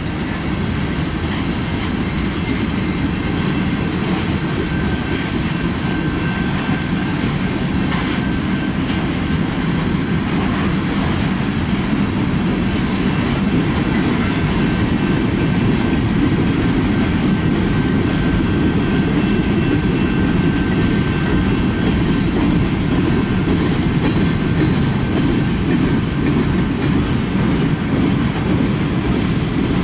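Freight cars rolling past: a steady rumble of steel wheels on rail, with clickety-clack clicks over the rail joints and a faint thin squeal from the wheels.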